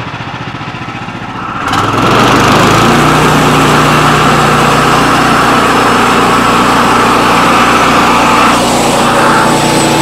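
Band sawmill's engine idling, then revving up about two seconds in and running steady at full speed as the band blade rips a kiln-dried white oak board to a straight edge.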